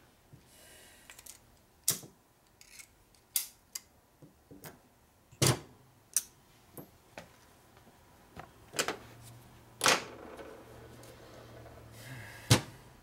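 Metal parts of a Harley 4-speed transmission lid and shifter clinking and clicking as they are handled on a workbench: about a dozen sharp knocks at irregular intervals, the loudest about five and a half seconds in, near ten seconds and near the end.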